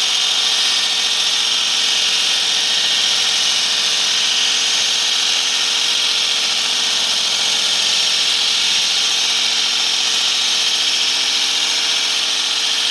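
Diamond-blade concrete saw cutting steadily through a concrete wall on a vertical cut: a loud, even grinding hiss over a constant motor whine that never lets up.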